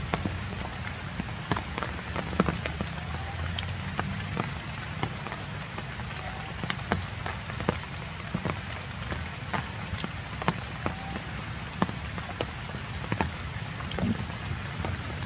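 Rain pattering: a steady hiss with scattered, irregular drop ticks and a low rumble underneath.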